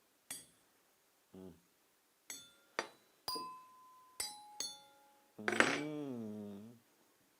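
Glass and metal tableware being tapped: about six sharp clinks, two of them ringing on as a clear tone for most of a second. Near the end a person's voice sounds briefly with a gliding pitch.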